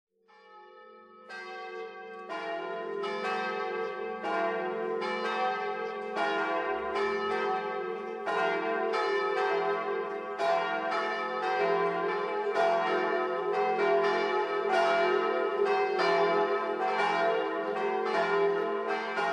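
Church bells pealing: several bells struck in turn, about two strikes a second, each ringing on over a steady low hum. The peal swells in over the first couple of seconds.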